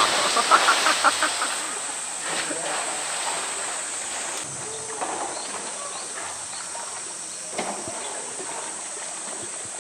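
Pool water splashing as a polar bear plunges in, loudest in the first second or so, then settling into churning, lapping water with a few smaller splashes.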